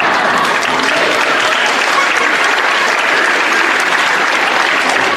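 An audience applauding steadily in a hall, many hands clapping together.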